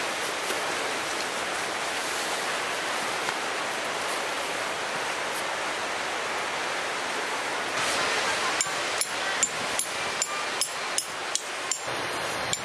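Steady rushing of sea surf. From about nine seconds in, a quick run of sharp taps, three or four a second.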